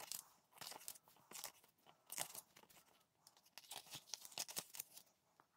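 Paper booklet pages being turned by hand: a faint run of short, crisp rustles and flicks that stops shortly before the end.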